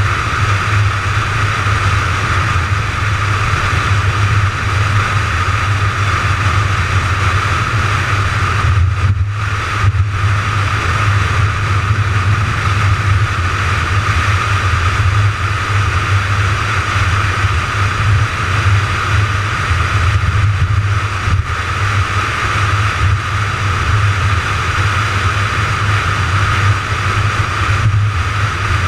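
McLaren 570GT cruising at highway speed, heard onboard: a steady low engine drone under a broad hiss of tyre and wind noise. The sound dips briefly a couple of times about a third of the way in and again around two-thirds.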